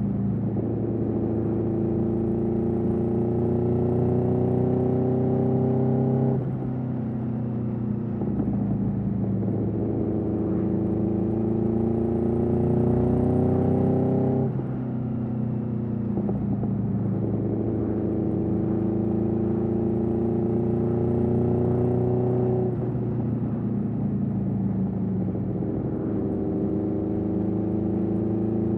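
2021 Aprilia Tuono V4's V4 engine through an Austin Racing GP1R exhaust, pulling under steady acceleration. The pitch climbs slowly, then drops sharply at each upshift, three times, about every eight seconds.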